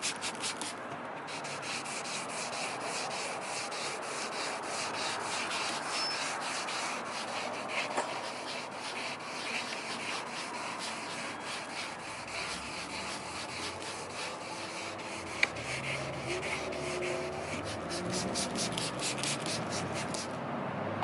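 Wet sandpaper rubbed back and forth by hand over a car fender's painted clear coat, cutting down orange peel. It makes a quick, even run of gritty scrubbing strokes that stops about a second before the end.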